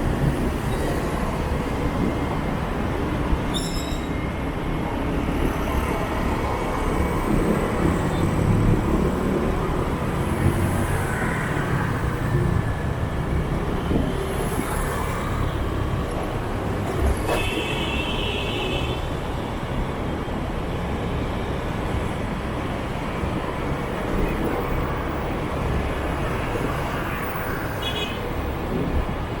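Dense motorbike and street traffic heard from a moving scooter: a steady rumble of engines and tyres. A vehicle horn sounds for about a second and a half just past the middle, with shorter beeps early on and near the end.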